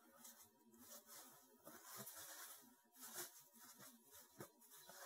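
Faint rustling and soft patting of a paper towel blotting wet raw chicken wings dry, in short irregular rubs.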